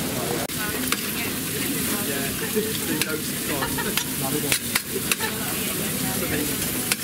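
Tartiflette frying and sizzling in a pan while it is stirred, the sizzle steady, with sharp clicks now and then, about five in all.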